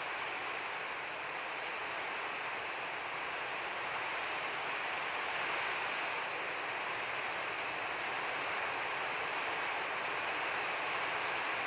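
A steady, even hiss of rushing noise with no distinct events, slowly getting a little louder over the first few seconds.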